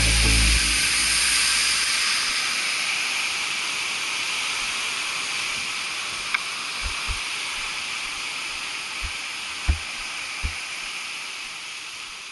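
Waterfall rushing as a steady hiss-like roar, slowly fading out, with a few faint low thumps in the second half.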